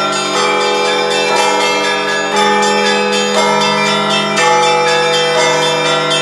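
Russian Orthodox church bells rung by hand in a festive Easter-week peal: rapid strikes of the small bells over a low bell tone that keeps sounding, with the chord changing about once a second.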